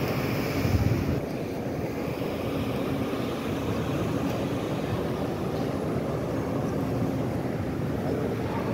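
Steady droning ambience of a large, crowded indoor prayer hall: fan and ventilation hum under the background movement of many people, with a brief low bump about a second in.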